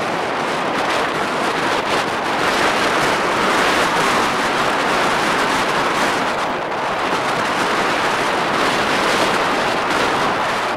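Strong snowstorm wind rushing in gusts, swelling a few seconds in and again near the end.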